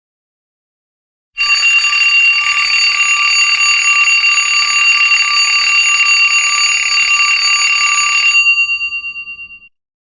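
Alarm-clock bell ringing rapidly and continuously, the timer's alarm signalling that the countdown has run out. It starts about a second and a half in, rings for about seven seconds, then dies away.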